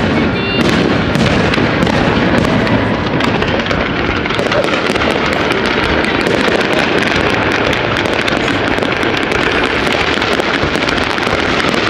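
Fireworks display going off in a dense, continuous barrage: loud booms with rapid crackling throughout, the crackles packed tighter from about four seconds in.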